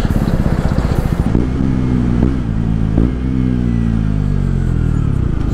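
KTM Duke 125's single-cylinder engine, fitted with an Akrapovic exhaust, pulling hard under acceleration. The revs rise, dip and rise again, then fall away slowly.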